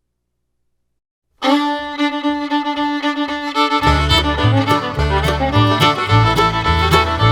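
Silence, then about a second and a half in, background music starts: a fiddle-led tune, with a bass line and a steady beat joining about four seconds in.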